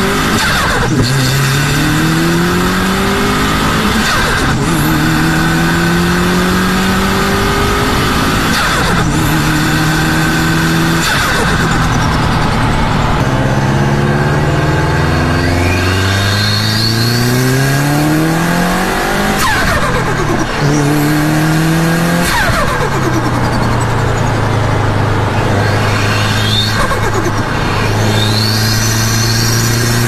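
Subaru WRX turbocharged flat-four engine pulling hard through the gears, its revs climbing and dropping at each of several shifts. Each lift brings a brief burst of turbo flutter. Over the last several seconds it settles to a steady cruise.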